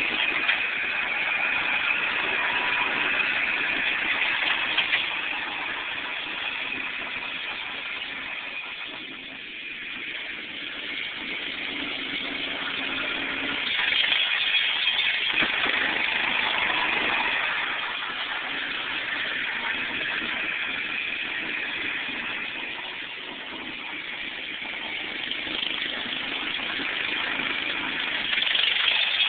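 Riding lawnmower's engine running steadily, getting louder and quieter by turns as the mower drives near and away.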